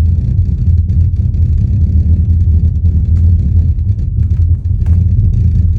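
Home-built 18-inch subwoofer in a barrel enclosure playing loud, deep bass, with faint ticks over it. The driver's seal leaks in several places, which the owner puts down to a butyl cord too thin at the chassis edge.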